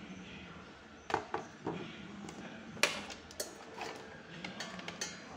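Irregular clattering clicks and knocks, roughly a dozen, beginning about a second in, the loudest near the middle, over a low steady background hum.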